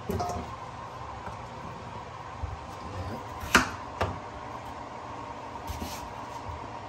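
Chef's knife chopping pumpkin on a bamboo cutting board: a few sharp knocks as the blade hits the board, the two loudest about three and a half and four seconds in. A short clink of pumpkin pieces dropped into a stainless-steel bowl at the start, over a steady hum.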